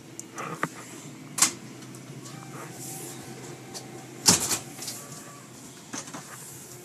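A few sharp knocks and clicks, the loudest a little past four seconds in, over a steady low hum.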